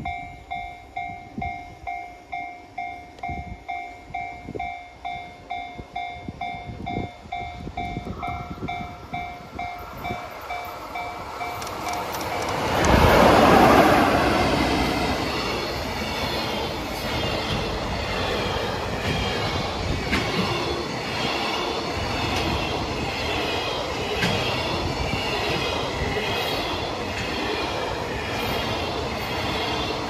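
Japanese level-crossing warning bell ringing about twice a second. About 13 seconds in, a JR Freight EF66 electric locomotive passes loudly, then a long container freight train rolls by with steady rhythmic wheel clatter over the rail joints.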